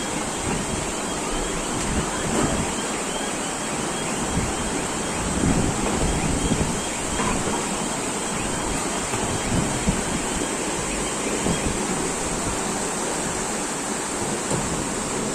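Rushing floodwater, a steady wash of water noise, with wind buffeting the microphone in uneven gusts.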